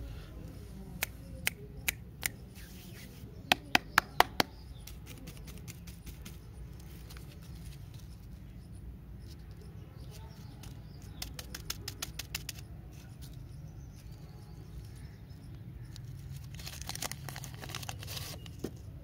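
Lollipop candy wrapper being handled and torn open by hand: sharp clicks and crinkles, with a quick run of five loud clicks about four seconds in and bursts of crackle near the middle and end, over a low steady hum.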